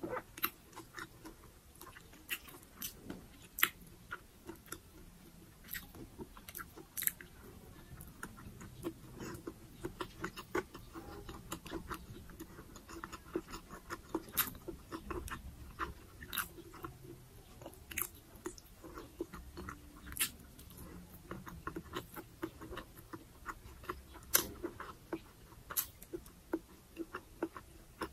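Close-miked chewing of a steamed green siomai dumpling: wet mouth sounds with many sharp, irregular clicks.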